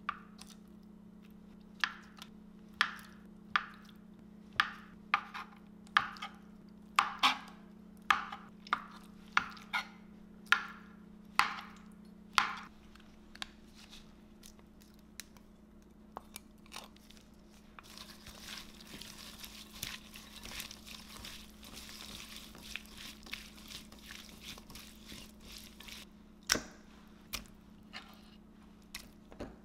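A crinkle-cut knife slicing through blocks of acorn jelly (dotorimuk) and knocking on an Epicurean cutting board: about fifteen sharp, evenly spaced chops, roughly one every 0.7 seconds. After that come quieter, softer mixing sounds as cut vegetables are tossed with seasoning in a glass bowl, and one more sharp knock near the end.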